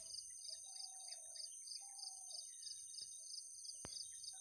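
Faint outdoor ambience: birds calling in short whistles over a steady high insect trill that pulses about three times a second.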